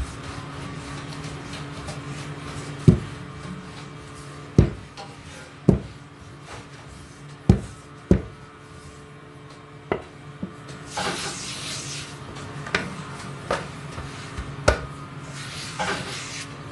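Roti dough being slapped and pressed out by hand on a floured counter: sharp, irregular thumps every second or two, with a couple of brief rubbing swishes. A steady low hum runs underneath.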